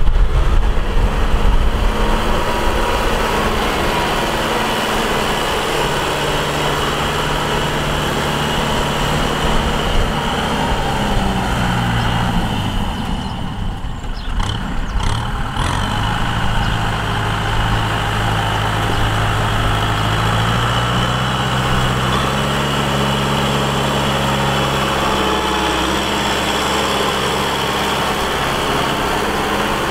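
Diesel farm tractor engines running steadily under load. The engine note drops about a third of the way in, then climbs again about two thirds of the way through.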